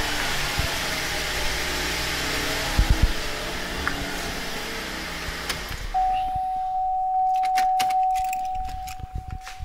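2013 GMC Acadia's engine idling with the cabin blower fan running, a couple of dull thumps near the middle. About six seconds in, the engine and fan cut off suddenly and a steady electronic warning tone starts and holds, with a few light clicks.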